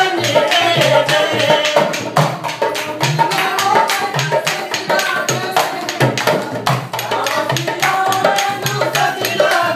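A dholak, a two-headed rope-tensioned barrel drum, played by hand in a quick steady rhythm, with voices singing traditional wedding songs over it.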